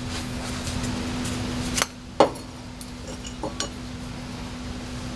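Metal parts clinking and knocking as the old fuel pump is handled and worked free of its bracket: two sharp clacks a little under half a second apart about two seconds in, the second the loudest, then a few lighter ringing clinks. A steady low hum runs underneath.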